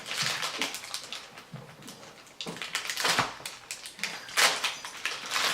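Plastic snack packaging, a Tim Tam biscuit packet, crinkling and crackling as it is handled and opened, with the loudest crackle about four seconds in.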